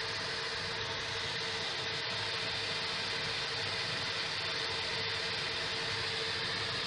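Dell PowerEdge R720 rack server's cooling fans running steadily during boot: an even rushing noise with a steady hum underneath.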